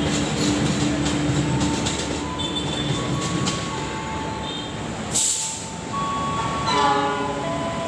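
Passenger train rolling away over station points: a steady rumble of wheels on rail, with thin squealing tones from the wheels partway through. About five seconds in comes a brief burst of hiss, then several overlapping steady tones near the end.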